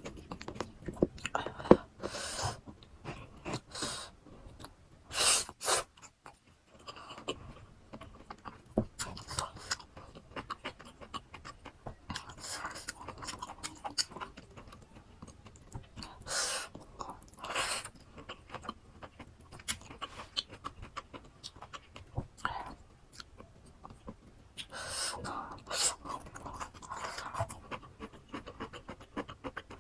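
Close-miked chewing of fresh fruit rujak, with many short wet, crisp bites and mouth clicks. A few louder breaths come between mouthfuls.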